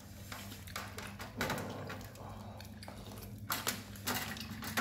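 A knife cutting boiled pork on a plate, its blade clicking and scraping against the dish, with scattered clinks of bowls and cutlery.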